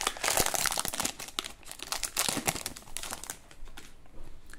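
Foil wrapper of a trading-card pack being torn open and crinkled by hand: a dense run of crackles that dies down about three seconds in.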